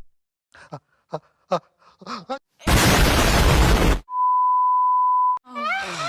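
Edited sound collage: a few short chopped-up voice snippets, then a loud burst of hissing noise that cuts off abruptly after about a second. A steady high beep tone follows, held for over a second, and a voice starts near the end.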